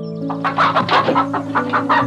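Pheasant clucking in a rapid, even series of short calls, about five a second, starting about half a second in, over background music with held notes.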